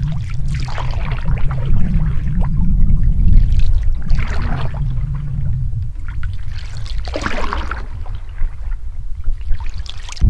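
Canoe paddle strokes in the water about every three seconds, each a short splash and trickle of water off the blade, over a steady low rumble.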